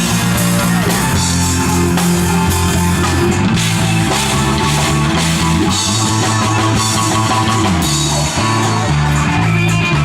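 Live rock band playing loudly through a PA: electric guitar, bass guitar and drum kit, with the bass moving in stepping notes under cymbal wash.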